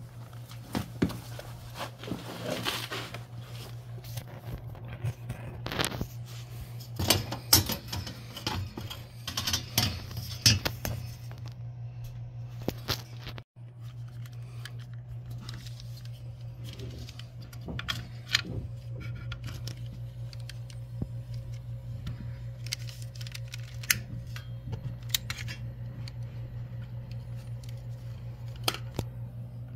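Irregular metallic clicks, clinks and scrapes of a gas boiler's sheet-metal burner cover and burner-compartment parts being handled, busiest in the first half, over a steady low hum.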